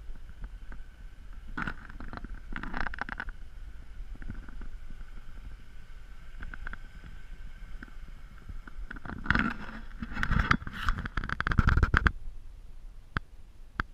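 Footsteps crunching on packed snow in two stretches, the second louder, over a low steady rumble; a few sharp clicks near the end.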